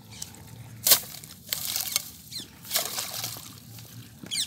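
Wet mud and water squelching and splashing as a hooked digging stick is jabbed and levered into a waterlogged bank, in irregular bursts, the sharpest about a second in.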